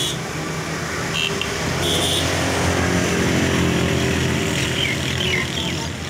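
A motor vehicle engine running with a steady pitch. It grows louder about a second in and eases off near the end.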